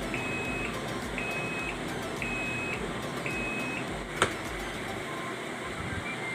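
Walton WWM-TTP60 top-loading washing machine sounding its end-of-cycle signal: four short, high beeps about a second apart, meaning the wash is complete. A single sharp click follows about four seconds in.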